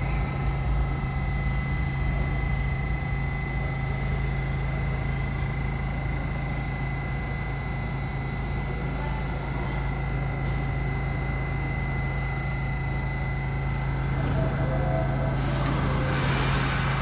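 R68-series subway train at the station, giving off a steady electrical hum and a high whine from its equipment. About fifteen seconds in, a loud hiss of air starts.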